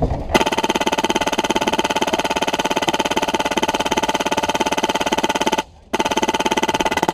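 Custom M1919A8-style HPA-powered airsoft machine gun firing full-auto: a long burst of rapid, evenly spaced shots that starts suddenly, breaks off for a moment near the end, then a second burst.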